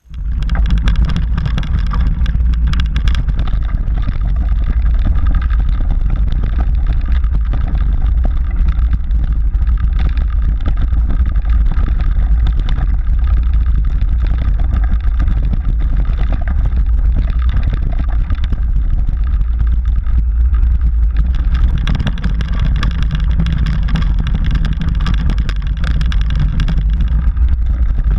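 Mountain bike running fast over a rough dirt trail: a constant low rumble of wind on the camera's microphone, with the rattle and clatter of the bike and tyres over the ground.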